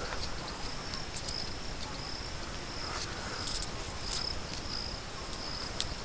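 High-pitched insect chirring: a steady note that dips and comes back every second or so, with a few light clicks over it.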